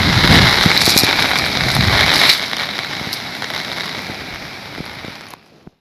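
Rain falling with a steady hiss and light crackle. It drops in level about two seconds in, fades, and cuts off near the end.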